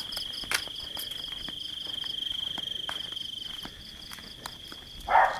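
Crickets chirping in a steady high trill that stops about two-thirds of the way through, with a fainter second trill that stops about two seconds in. Scattered footsteps and clicks run underneath, and a short loud burst of noise comes near the end.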